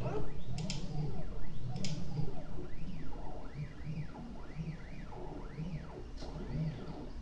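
Prusa i3 RepRap 3D printer's stepper motors whining in repeated rising and falling sweeps of pitch as the print head speeds up and slows down on each move, over a steady low hum. A few sharp ticks stand out, one about two thirds of a second in and another near two seconds.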